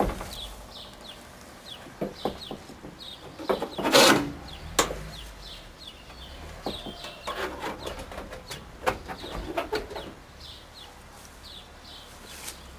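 Chickens clucking, with short, high, falling peeps repeating throughout. A loud clatter about four seconds in and a sharp knock shortly after come from the corrugated sheet-metal door being handled.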